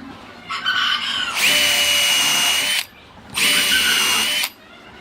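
Small electric power tool, drill-like, run twice in short bursts with a steady high whine. The first run starts about half a second in and comes up to full speed about a second later. The tool is switched off briefly before the second run.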